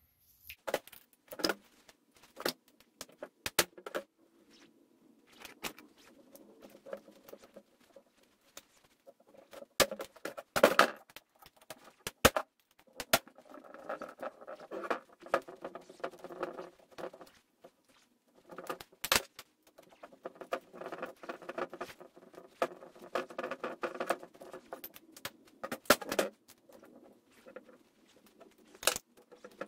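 A folding hex key set loosening the Allen screws on a Porter-Cable DA250B finish nailer's cap: sharp metal clicks and clinks of the keys against the tool, with two longer stretches of squeaky rasping as the screws are turned.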